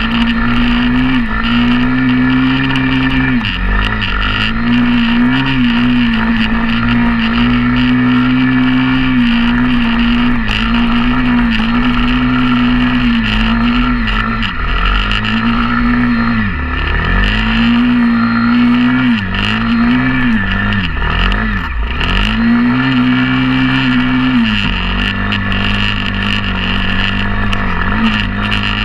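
Pit bike engine running while ridden: the revs hold fairly steady, with several short drops when the throttle is rolled off and back on, and settle to a lower steady pitch near the end.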